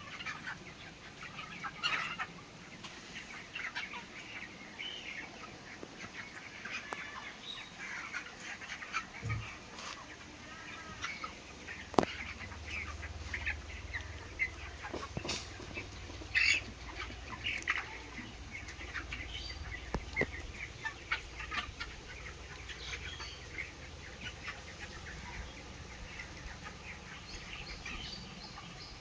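A flock of 30-day-old chickens in a poultry house, many birds clucking and chirping at once, with occasional wing flapping. A sharp click sounds about halfway through, and a low rumble joins from then on.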